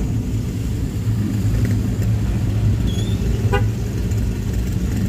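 Steady low rumble of a vehicle's engine and tyres, heard from inside the cabin while creeping along in traffic. A short horn toot sounds about three and a half seconds in.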